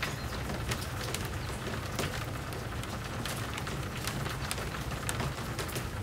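Steady spring rain, with many individual drops ticking close by over a continuous patter and a low, steady rumble underneath.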